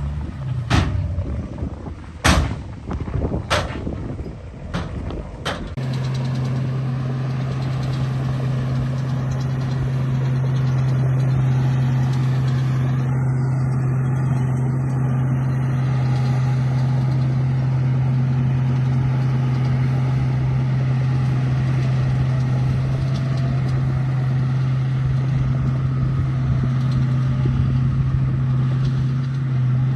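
A few sharp knocks, then a motor starts running about six seconds in and keeps up a steady drone at one pitch.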